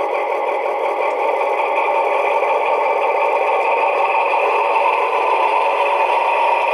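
Sound decoder in a Lenz O gauge DR V100 model playing the diesel locomotive's engine sound through the model's small loudspeaker: a steady engine note with no deep bass.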